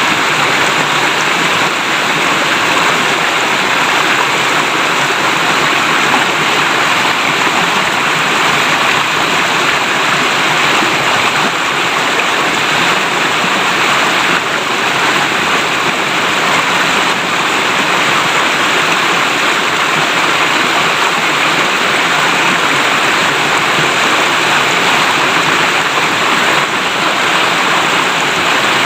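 Clear river water flowing and babbling in a steady, even rush.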